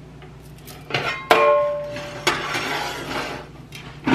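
Cookware handled on a stovetop. A metal pot or pan strikes something with a sharp clang that rings briefly about a second in, then a second knock follows with a short noisy trail.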